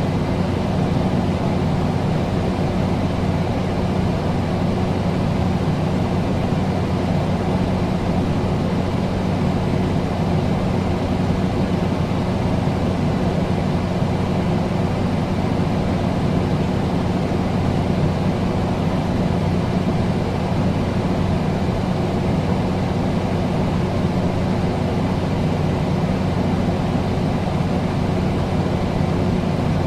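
Air conditioner running steadily: an even rush of fan air over a low, constant hum.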